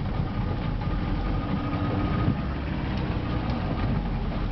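Fishing boat's engine running steadily at idle, a continuous low rumble.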